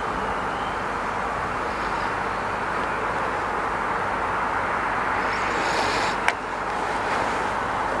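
Steady rushing outdoor background noise, with a single sharp click about six seconds in.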